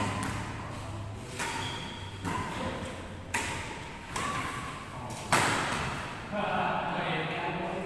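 Badminton rally: about five sharp racket strikes on a shuttlecock roughly a second apart, the last one the loudest. Voices talk in the background.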